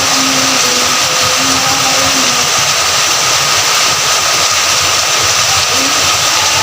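Heavy rain falling steadily: a dense, even hiss with no let-up. A few faint steady tones hum underneath.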